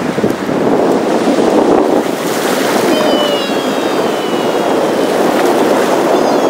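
Ocean surf washing up the beach in shallow foamy waves, a steady rushing noise, with wind buffeting the microphone.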